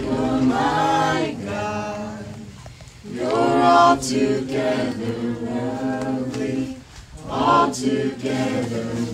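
Worship song on the soundtrack: a choir of voices singing long held notes in harmony, in three phrases broken by short pauses about three and seven seconds in.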